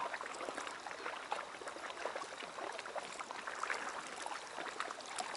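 Lake water lapping and splashing gently against a concrete harbour wall and the stones at its foot: a steady wash with many small ticks and trickles.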